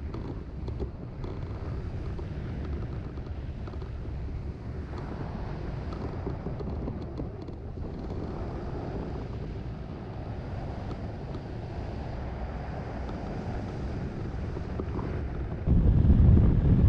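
Airflow buffeting the microphone of a camera mounted on a hang glider in soaring flight: a steady low rush of wind that gets markedly louder near the end.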